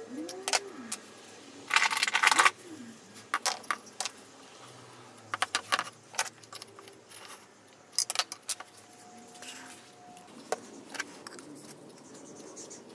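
Handling of a metal combination square and plastic spring clamps on a small wooden box: scattered clicks and taps, with the loudest metallic rattle about two seconds in.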